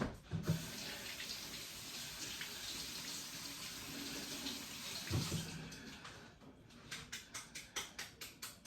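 Faint sound of a faucet running into a sink as a dropped piece of raw bull testicle is rinsed off. The water stops about six seconds in, followed by a quick run of short taps.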